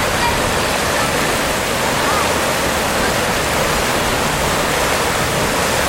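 Rushing water: a steady, even noise with no breaks.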